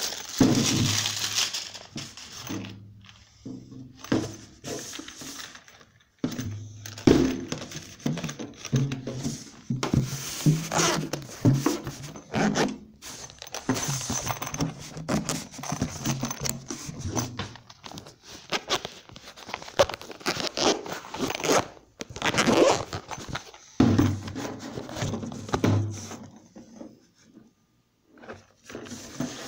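Packaging of a boxed set of harmonicas being opened by hand, with crinkling, tearing and handling thunks in irregular bursts and a few short pauses.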